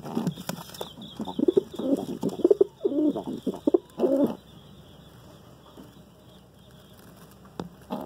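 Domestic pigeons cooing, a run of low calls in the first four seconds that then falls quiet.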